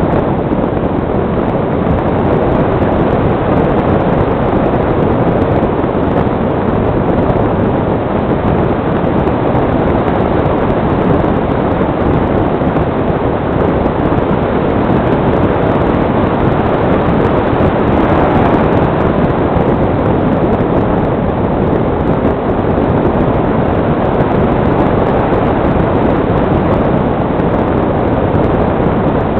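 Steady, loud rush of airflow over the microphone of a camera riding on an electric model glider in flight.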